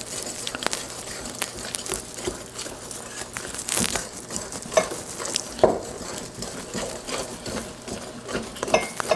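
Wire balloon whisk stirring thick buttermilk donut batter in a mixing bowl, combining the wet and dry ingredients, with irregular clicks and scrapes of the wires against the bowl.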